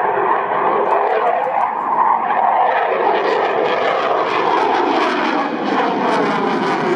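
Eurofighter Typhoon's twin EJ200 turbofans passing at full power, the jet noise falling in pitch as it goes by, then a harsh crackle from about three seconds in as it climbs away.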